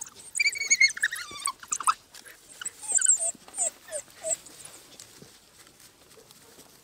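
African wild dogs twittering at a shared carcass: a quick run of high-pitched squeaky calls in the first two seconds, then several shorter chirps around three to four seconds in, going quieter toward the end.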